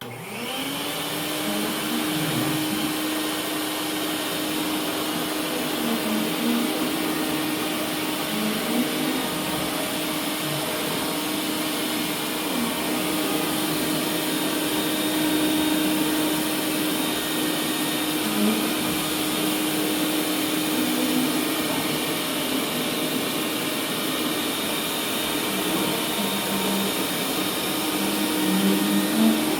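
Shop vac motor starting up, its whine rising for about a second, then running steadily as it blows air into a homemade hovercraft's tarp skirt.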